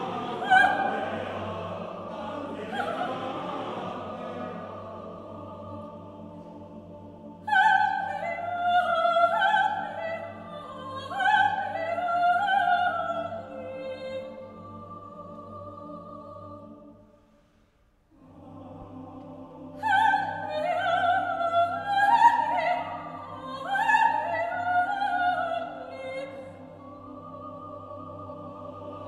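A soprano sings high, swooping herding calls in two phrases over a male choir's low, sustained drone, with a short silence between the phrases. The calls imitate Estonian herd children's melodious calls.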